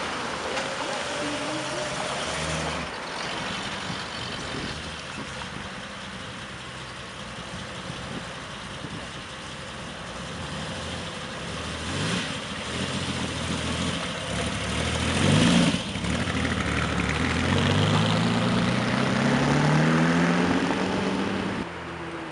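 Several cars pull away one after another, engines idling and revving, including a classic Ferrari V12 coupé. There is a sharp rev about two-thirds of the way through, then a long run of rising engine pitch as a car accelerates away near the end.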